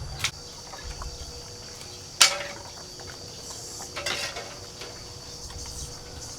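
A few sharp clinks or knocks, the loudest about two seconds in and a smaller group about four seconds in, over a steady high-pitched insect drone.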